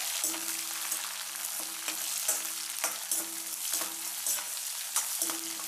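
Tempering sizzling in hot sesame oil in a stainless-steel kadai: green chillies, curry leaves, cashews, peanuts and dals frying. A metal slotted spoon stirs it, with a sharp click against the pan about every half second to second.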